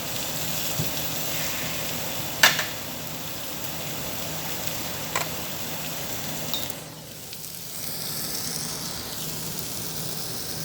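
Meat sizzling on a Korean barbecue table grill, a steady frying hiss. A sharp clink sounds about two and a half seconds in, a lighter one around five seconds, and the sizzle dips briefly near seven seconds.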